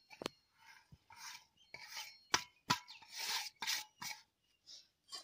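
Fingers scraping and rubbing food off a steel plate into an aluminium pot: a series of short scraping strokes with several sharp clicks of metalware.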